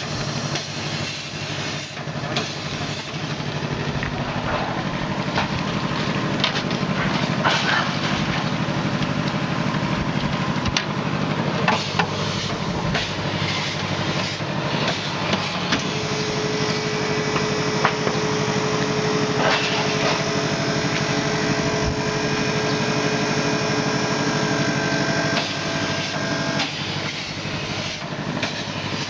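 Machinery running with a steady hum, with scattered knocks and clatter of metal handling. From about the middle, a steady whine of several tones joins in for roughly ten seconds, then stops.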